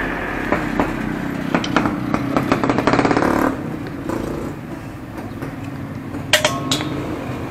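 A ratchet wrench clicking in a quick run as it turns a bolt on a scooter engine, with scattered tool knocks before it and two sharp, ringing metal clinks near the end. A motor vehicle engine runs steadily underneath.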